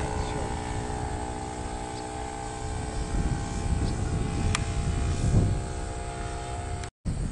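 RC model Cessna 182's O.S. 95 four-stroke glow engine running steadily in flight, a droning propeller note with a steady pitch. The sound drops out for a moment near the end.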